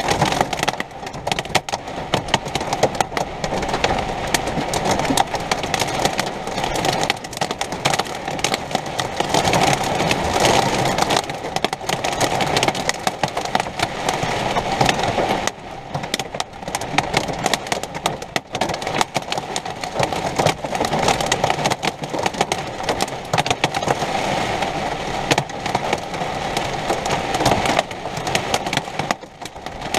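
Heavy storm rain beating on an RV's roof and windows: a dense, loud, steady noise full of sharp hits.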